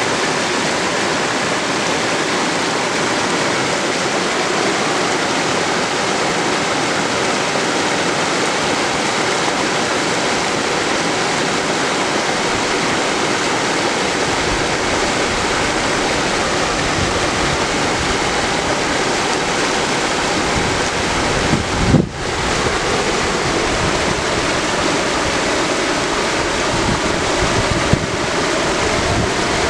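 Mountain river running fast over granite slabs, a steady rush of whitewater. Low wind buffeting on the microphone joins in the second half, with a short dip and bump about three-quarters of the way through.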